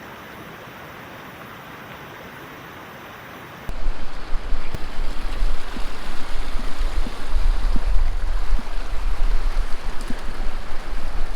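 Steady rush of creek water. About four seconds in it abruptly turns much louder, with gusting wind buffeting the microphone in a deep rumble over the stream.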